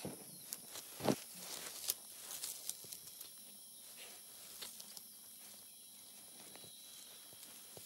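Honey badger digging in stony soil with its claws: irregular scratching and scraping of claws on earth and grit, with one sharper knock about a second in. The scratching is busiest in the first few seconds and grows fainter after.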